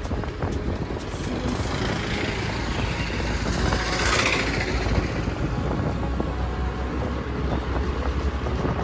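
Riding noise from a moving scooter: wind on the microphone over the low rumble of the road and traffic. About four seconds in there is a louder swell as an auto-rickshaw passes close by.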